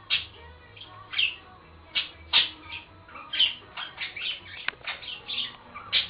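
Pet budgerigars chirping and squawking in a quick run of short, loud calls, more than a dozen in a few seconds.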